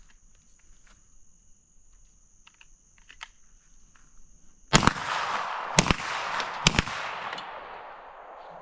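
Three gunshots about a second apart, with a fainter fourth, starting about five seconds in, each followed by a long echo that dies away over a few seconds.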